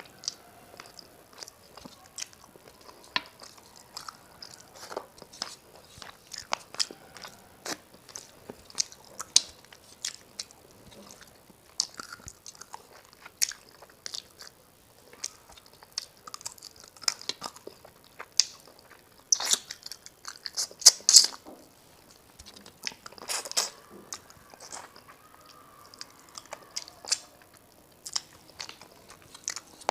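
A person eating a rice and fish curry meal close to the microphone: chewing with frequent short, sharp mouth clicks and smacks, louder and busier about two-thirds of the way through.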